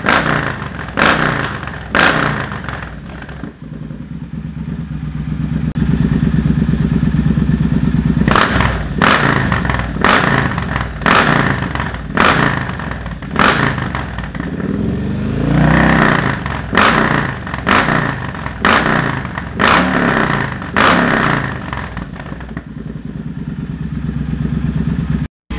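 Triumph Bonneville Speedmaster's 1200 cc parallel-twin engine being revved hard while stationary, through a Zard slip-on exhaust with its silencer insert removed on a 2-into-2 U-pipe: very loud. Sharp throttle blips come about once a second, with one held rev about a quarter of the way in and a rise and fall of revs about two-thirds of the way in.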